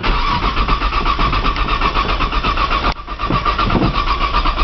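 1995 Nissan Maxima's 3.0-litre V6 being cranked over by its starter on a cold morning, a fast, even cranking rhythm that breaks off briefly about three seconds in and then resumes, the engine not catching. This is a hard cold start on a high-mileage engine.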